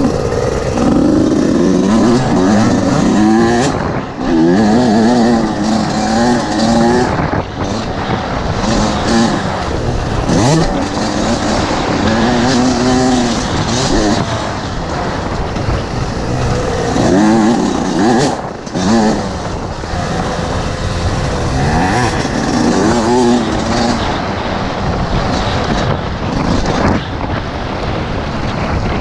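Motocross dirt bike engine under hard riding, revving up and easing off again and again through gear changes and turns, with short drops where the throttle is shut.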